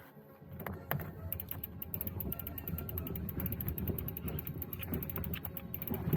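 A mechanism rattling and creaking, with fast, even clicking over a low rumble that starts about half a second in.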